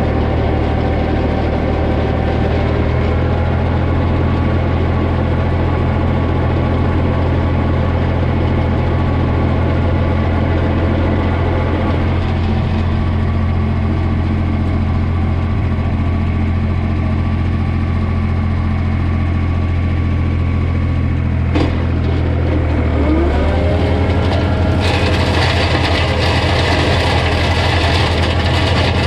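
Holder A45 vineyard tractor's engine running steadily while it drives a mulcher chopping vine prunings. About 23 seconds in, the engine speed rises with a short climbing whine, and a brighter hiss joins for the last few seconds.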